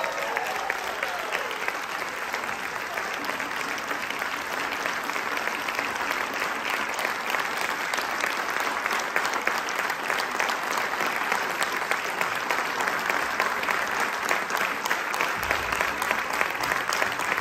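Audience applauding steadily, many hands clapping at once, building slightly as it goes on.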